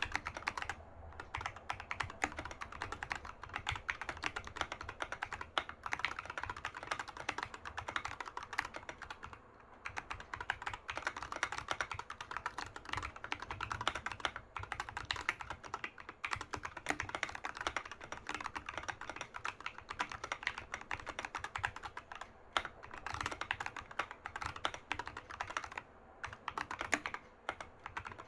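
Continuous fast typing on a Keychron K6 mechanical keyboard with Huanuo moon yellow linear switches and Domikey SA profile keycaps, a dense stream of key clicks with a few brief pauses.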